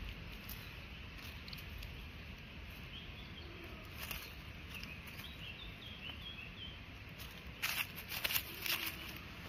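Dry leaf litter rustling and crackling in several loud bursts near the end, over a low steady outdoor rumble. Faint small bird chirps a few seconds in.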